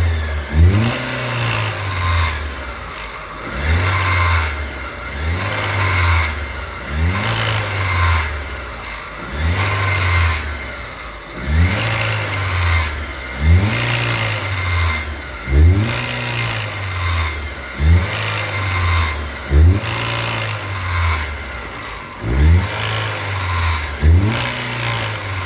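Chevrolet Corsa four-cylinder engine revved repeatedly in short blips, about one every two seconds, each rising and falling back to idle. The revs are meant to bring out a loud noise at the front of the engine that the customer reports when accelerating uphill.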